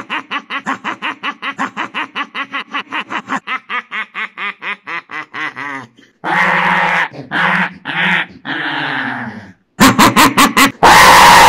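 Dog vocalising in a fast, even run of short pulses for about six seconds, then several longer calls. Near the end come loud rapid clicks and a loud sustained noise.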